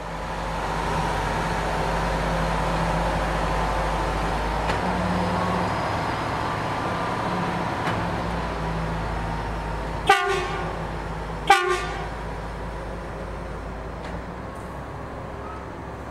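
Diesel engines of Plasser American track-maintenance machines running as they roll past, slowly growing quieter. Two short horn toots, about a second and a half apart, come about ten seconds in.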